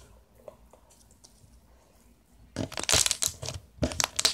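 Quiet at first, then from about two and a half seconds in, a run of crackly, crunchy handling noises close to the microphone, as slime or its plastic container is handled.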